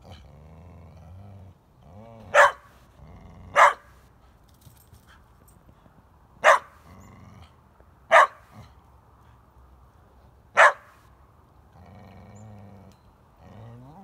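A dog barking five sharp, loud barks a second or more apart, with low growling in between: play barks inviting a goat to chase her.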